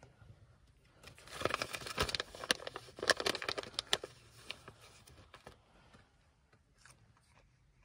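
Rustling and crackling of a fluffy fleece blanket close to the microphone, mixed with handling clicks, for about three seconds. It then dies down to a few scattered faint clicks.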